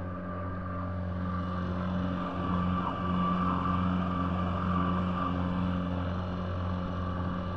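Outboard motor of a small fishing boat running steadily, the boat underway at speed.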